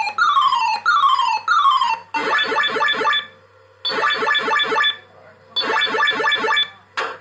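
Bellfruit SILVAREELS fruit machine board's AY sound chip playing game sound effects. Three quick falling bleeps are followed by three separate bursts of fast warbling bleeps, each about a second long, with short gaps between them.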